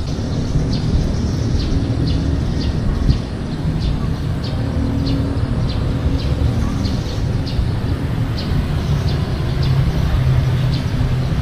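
City street traffic with vehicle engines running steadily, and a short high chirp repeating about twice a second.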